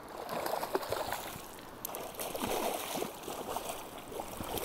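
Shallow river water sloshing and splashing unevenly over a steady stream sound.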